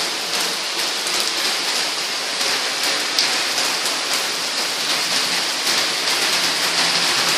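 Heavy rain pouring down in a steady hiss.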